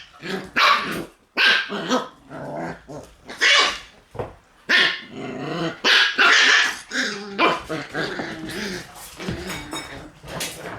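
Shiba Inu puppies yapping and growling in play, with repeated sharp high yelps and rough growls between them.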